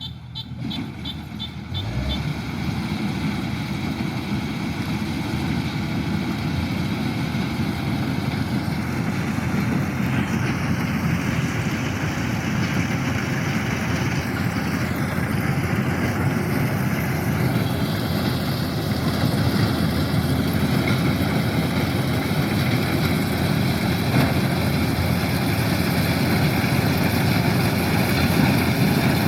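Kubota DC-105X rice combine harvester running: its diesel engine and machinery make a steady, dense mechanical noise that grows louder about two seconds in and then holds.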